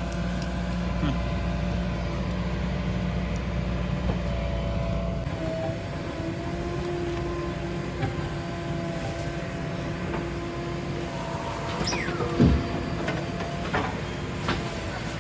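Diesel engine of heavy earthmoving machinery running steadily, with held whining tones. The low rumble shifts about five seconds in, and a few sharp clanks come later, the loudest about twelve seconds in.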